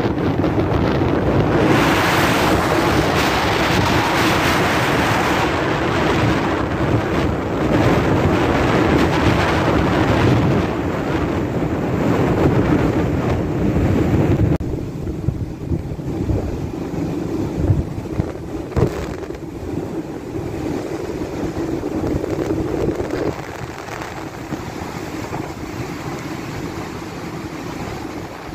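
Strong wind buffeting the microphone over the rush of heavy seas around a bulk carrier underway. The wind drops off suddenly about halfway through, and a couple of short buffets follow a few seconds later.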